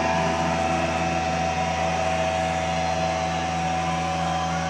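Electric guitar and bass amplifiers left ringing in a steady feedback drone: a sustained high tone over a low hum, with no beat or pitch change.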